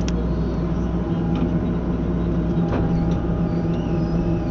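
Trackhoe excavator running with a CTR 42 IP hydraulic ground saw (bucksaw) on its arm: a steady engine and hydraulic drone, with a couple of faint clicks.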